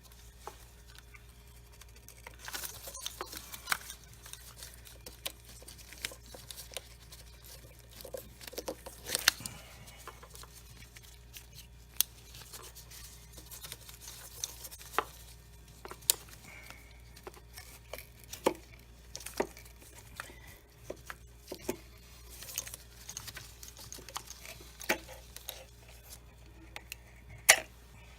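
Scattered clicks, knocks and light clatter of hand tools and metal parts being handled during engine work, with one sharper knock near the end.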